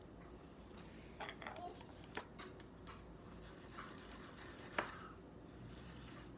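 Faint scratchy strokes of a paintbrush with scattered small taps and clicks, the sharpest click just before five seconds in.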